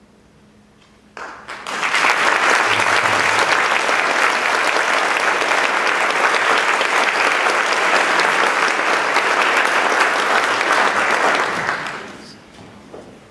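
Concert audience applauding, starting suddenly about a second in and dying away near the end.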